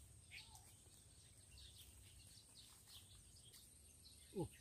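Faint outdoor quiet with scattered small bird chirps and a steady thin high tone. Near the end comes one louder call that falls steeply in pitch.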